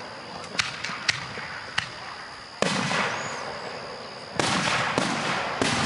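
Aerial fireworks exploding: a few sharp cracks early on, then a loud burst about two and a half seconds in with a long trailing crackle, and several more bursts in quick succession from about four and a half seconds on.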